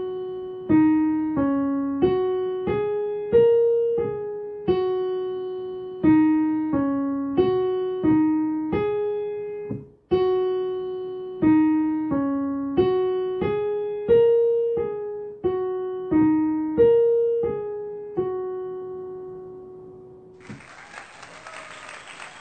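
Piano playing a simple two-handed tune on the black keys at a brisk tempo, two phrases of even notes, the last held and left to ring. About two seconds before the end a burst of applause comes in.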